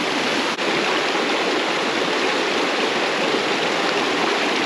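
Creek water rushing over rocks, a steady close rush, with a faint click about half a second in.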